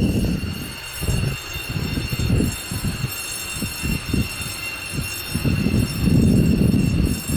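F-16 fighter jet engine rumbling unevenly, with a steady high-pitched turbine whine over it. Loud at first, it drops after about a second and swells again near the end.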